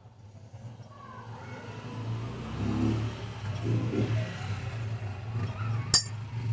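Steady low hum of a homemade bottle cutter, a microwave turntable motor turning a glass bottle against a heated resistance wire. A single sharp crack about six seconds in is the bottle cracking through along the heated line.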